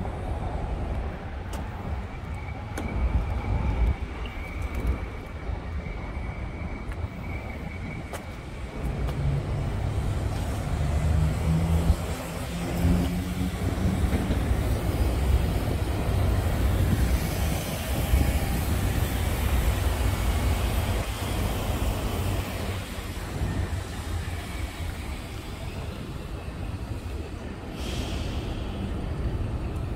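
Street traffic: a steady low rumble of passing vehicles, with one engine rising in pitch as a vehicle accelerates from about ten seconds in. A short hiss near the end.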